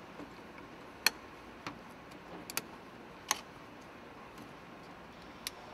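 Several sharp, separate clicks, five or so, from plastic high-voltage cable connectors being handled and snapped together under a Toyota Mirai, over steady factory background noise.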